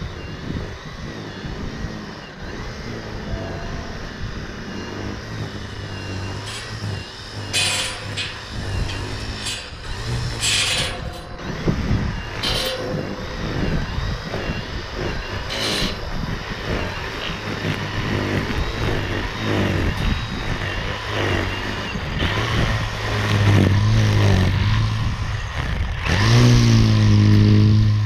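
EGO 56V battery power head with a 15-inch string trimmer attachment running and cutting grass: a steady electric motor hum from the spinning line head, with a few brief sharp bursts in the first half. It runs harder and louder over the last few seconds.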